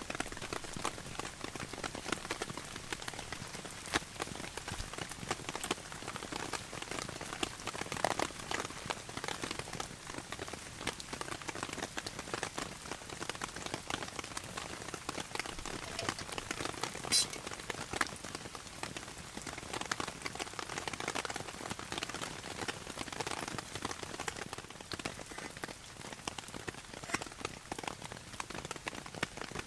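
Heavy rain falling on a tarp: a steady, dense patter of drops, with one sharper tick about 17 seconds in.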